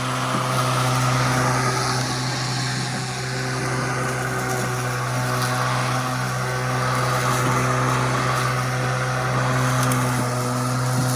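Sun Joe 24V-X2-17LM 48-volt cordless electric walk-behind lawn mower running while mowing grass: a steady low electric hum under the whir of the spinning blade, with only slight rises and dips in loudness.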